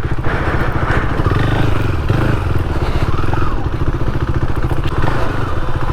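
KTM 390's single-cylinder engine running steadily at low speed as the motorcycle rides a rough dirt track, with a noisy rushing and rattling over the engine's pulse.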